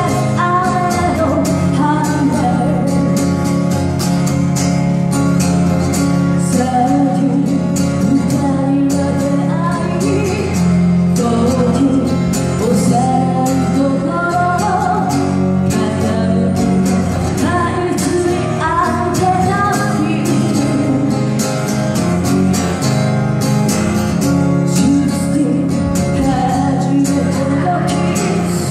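A woman singing a Japanese pop song while strumming her own acoustic guitar, the strummed chords keeping a steady rhythm under the voice.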